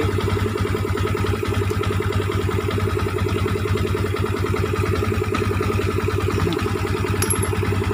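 Yamaha Vixion's single-cylinder four-stroke engine idling with a steady, even pulse, its top end freshly rebuilt.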